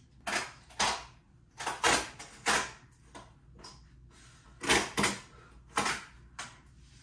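A poster being fixed to a wall: about nine short rustling, scraping strokes of paper and hands, in quick pairs and singles.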